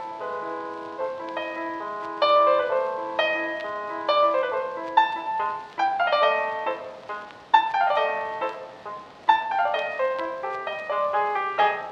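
Piano music: a lively tune of struck notes, with quick runs falling from high to low several times.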